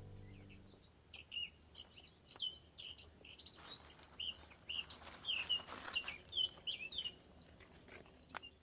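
Small songbirds chirping: many short, quick chirps repeated irregularly, busier in the second half. Background music fades out in the first second.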